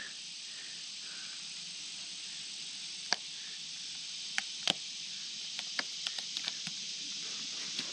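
Steady high insect chorus. Over it come a few sharp clicks and cracks: one about three seconds in, two more soon after, then a quick run of small ones, as fingers pick at the crumbling rotten wood of a timber trestle post.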